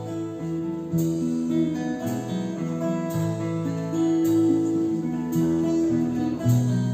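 Acoustic guitar strumming chords, the instrumental introduction of a folk song.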